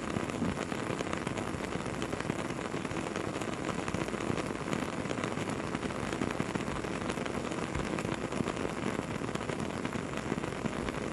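Campfire burning with a steady crackle of many small pops and snaps.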